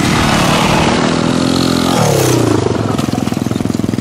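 Dirt bike engine running hard close by. Its pitch drops steeply about two seconds in as it goes past, then it settles into a fast, even pulsing engine note.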